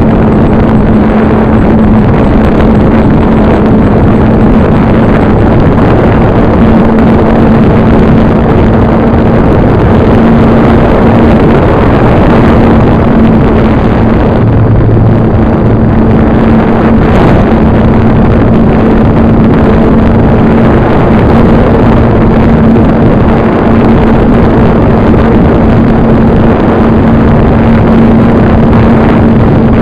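RC airplane's motor and propeller heard from a camera on board in flight: a loud, steady propeller drone under heavy rushing noise, the hum wavering briefly a few times.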